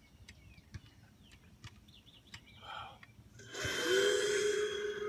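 An unexplained droning sound from the sky, the kind reported as 'sky trumpets': about three and a half seconds in, a loud hiss swells up together with a low steady tone that glides up slightly and then holds.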